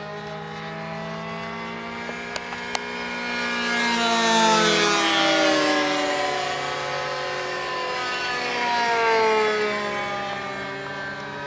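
Radio-controlled model airplane engine flying past twice, each pass swelling in loudness and dropping in pitch as the plane goes by.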